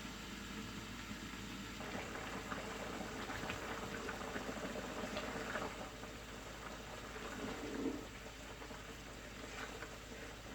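Pork simmering in tomato sauce in a pot, a steady bubbling with small scattered pops as the meat is cooked to soften.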